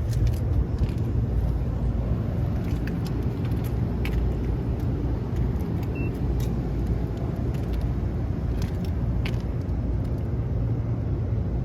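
Steady low running hum of a Lennox HVAC unit, with scattered light clicks and taps as meter leads are worked into a control-board terminal block.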